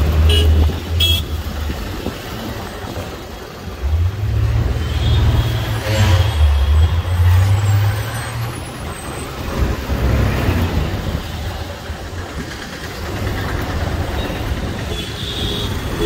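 Road traffic heard from a moving two-wheeler: engine and road rumble with wind on the microphone, heaviest from about four to eight seconds in. There are two short horn toots about a second in.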